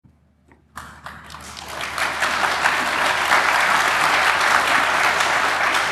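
Audience applauding to welcome a speaker: a few scattered claps start just under a second in and swell into steady applause by about two seconds in.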